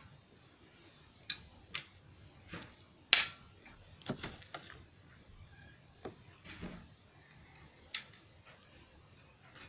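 Handling noise: a dozen or so scattered sharp clicks and knocks at close range, irregularly spaced, the loudest about three seconds in, as a Red Ryder BB gun and the recording phone are handled.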